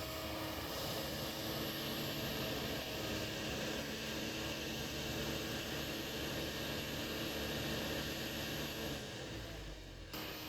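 Kobelco excavator's diesel engine running steadily at working revs. The sound sags about nine seconds in and breaks off abruptly near the end.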